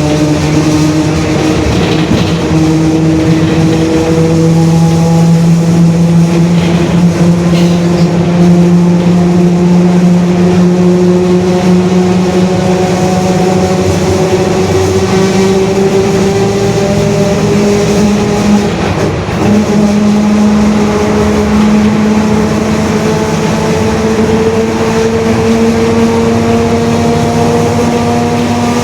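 Mercedes-Benz OF-1721 BlueTec 5 bus driving along, with a steady tonal whine whose pitch climbs slowly as road speed builds. The droning points to a noisy differential.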